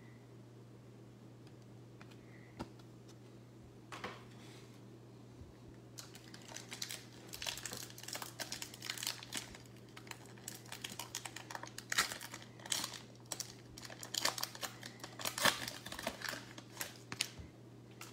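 Wrapper of a 2022 Bowman Baseball retail pack crinkling and tearing as it is ripped open by hand. After a couple of faint clicks it turns into dense, irregular crackling about six seconds in.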